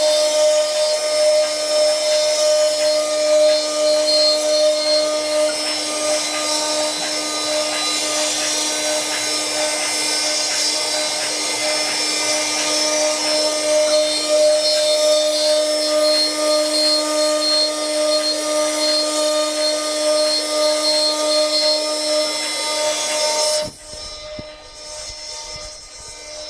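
CNC wood lathe-engraving machine running steadily, with a constant whine and the hiss of its cutting. It drops off sharply near the end, leaving a fainter hum.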